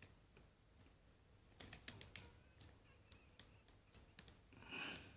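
Faint, scattered clicks of a lock pick and tension wrench working the pins of a Best 7-pin padlock, with a brief faint tone near the end.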